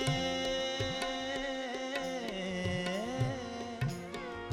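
Thumri accompaniment between sung lines: tabla with its bass drum sliding in pitch, over a steady drone, while a melodic instrument slides between notes.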